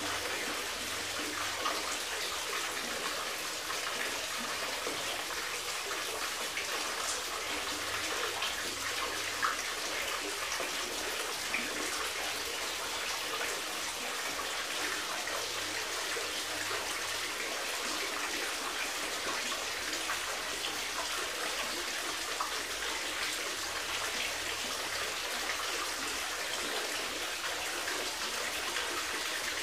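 Running water trickling and splashing steadily, with small drips and splashes scattered through it.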